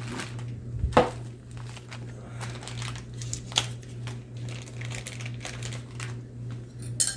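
Plastic packaging crinkling and rustling in irregular bursts as a new RC part's package is handled and opened, with a sharper knock about a second in, over a steady low hum.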